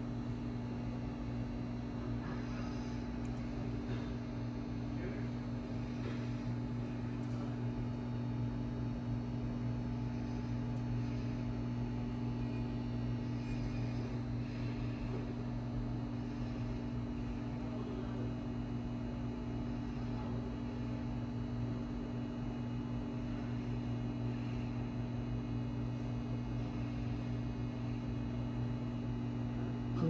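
Steady low electrical hum, with a few faint clicks from a handheld fibre optic stripper taking the coating off a fibre a little at a time.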